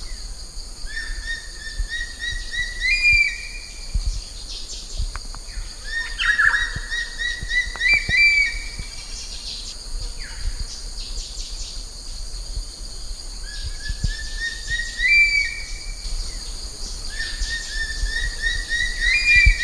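Changeable hawk-eagle calling: four shrill whistled phrases, each a run of notes climbing in pitch to a higher end note, spaced several seconds apart. Steady high-pitched insect-like background tones run beneath.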